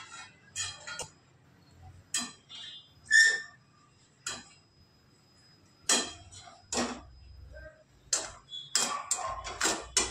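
Slotted steel spatula scraping and knocking against a frying pan and a stainless steel plate as fried chivda is scooped out: separate sharp clinks and scrapes about once a second, bunching together near the end.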